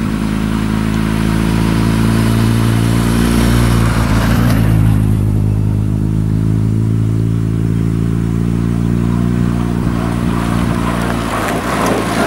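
Motorcycle engine idling steadily close by, its pitch unchanging. Near the end the engine sound drops away and a rough rush of noise takes over as the cyclists sweep past.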